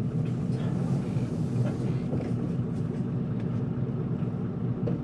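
Isuzu Erga city bus's straight-six diesel engine running at a steady pitch, heard from inside the passenger cabin as an even low drone.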